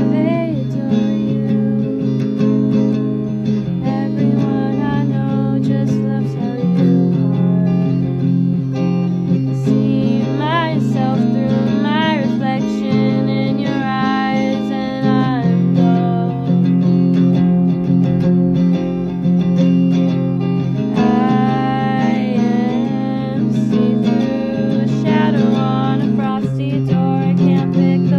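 Acoustic guitar playing an original song, with a voice singing over it; the held sung notes waver.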